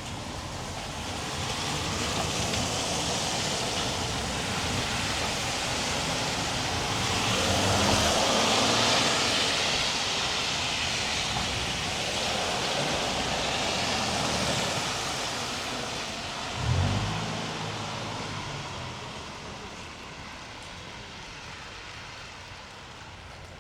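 Vehicles passing on a wet road: tyre hiss that swells to a peak and slowly fades away. A short low thump comes about two-thirds of the way through.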